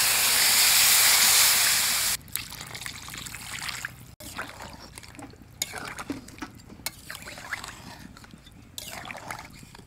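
Water poured into a hot karahi of sautéed, spiced chicken, hissing loudly and then stopping abruptly about two seconds in; this is the water going in to turn the fried masala into gravy. After that, quieter bubbling and small pops as the curry comes to a simmer.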